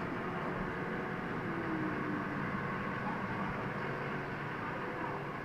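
Steady background noise, a constant hum and hiss with no distinct events.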